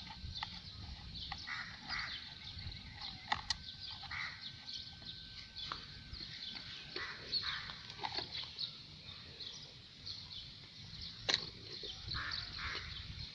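Birds chirping in short, scattered calls, with a few sharp clicks and a thin steady whistle-like tone for several seconds.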